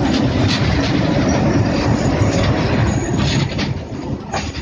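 Indian Railways diesel locomotive passing close on the adjacent track, its engine running loud and low. Passenger coaches follow, with wheels clicking over rail joints, and the sound eases a little near the end as the locomotive moves away.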